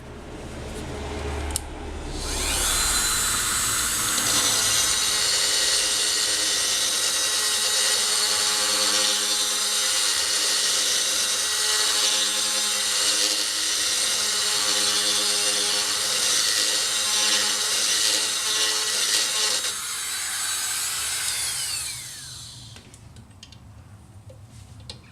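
Electric drill running a bit through the holes in handbrake lever arms to clean them out, so that pins that are slightly too large will fit. It spins up about two seconds in, runs steadily for about twenty seconds, then winds down.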